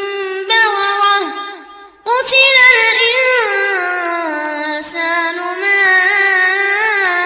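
Melodic Quran recitation by a single high voice, holding long wavering notes. It breaks off about a second and a half in and starts a new phrase about two seconds in.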